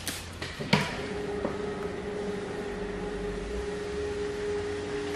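Hand trigger spray bottle squirting film-install solution twice in the first second, the second squirt the loudest, over a steady background hum.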